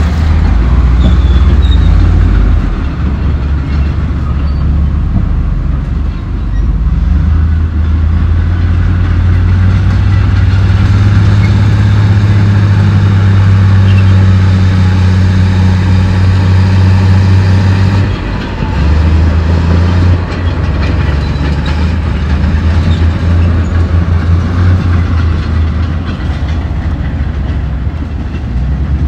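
Komatsu D68E crawler bulldozer working, its diesel engine running hard with a steady drone and the steel tracks clattering. The sound shifts abruptly about two-thirds of the way through.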